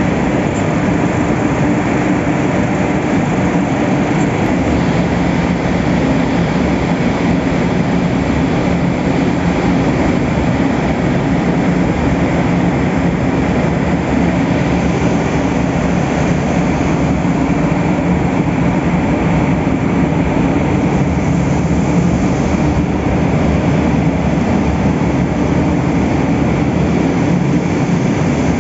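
Continuous colour coating line for mild steel strip running: a steady, unbroken machinery noise with a low hum, from the strip rollers and the curing oven's blowers.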